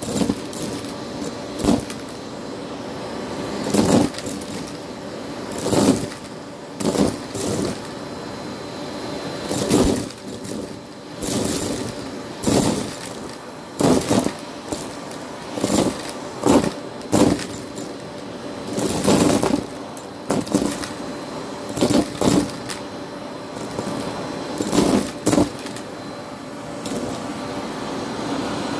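Vacuum cleaner running over a rug: a steady motor hum with short rattling bursts every second or two.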